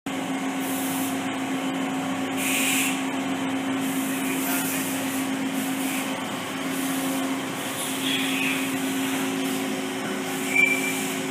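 Makino A77 CNC horizontal machining center running: a steady hum under a whooshing haze. A brief high-pitched tone sounds near the end.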